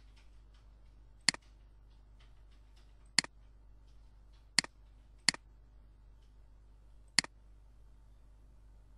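Computer mouse button clicked five times at uneven intervals, each a sharp click followed at once by a softer release click, over a faint steady hum.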